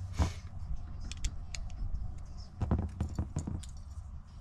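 Small clicks and rattles of a metal license-plate light bracket and its wires being handled, with a sharp click just after the start and a cluster of clicks about three seconds in, over a steady low hum.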